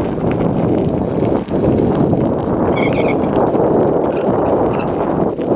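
Bicycle tyres rolling over a gravel road: a steady crunching rattle of many small clicks. A brief high chirp of a few quick pulses cuts in about three seconds in.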